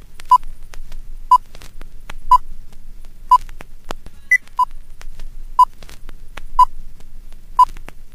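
Countdown leader beeps: a short, steady electronic beep about once a second, with one higher-pitched beep about halfway through and faint ticking and crackle between the beeps.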